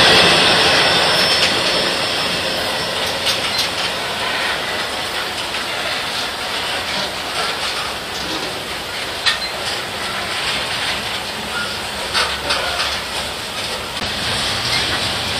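Freight train cars rolling past at close range: a steady rumble and hiss of steel wheels on rail, with irregular sharp clicks as the wheels cross rail joints. Slightly louder at first, then settling to an even level.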